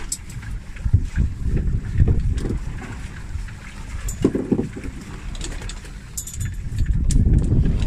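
Wind buffeting the microphone aboard a fishing boat at sea, an uneven low rumble that rises and falls in gusts, over the general noise of the boat on the water.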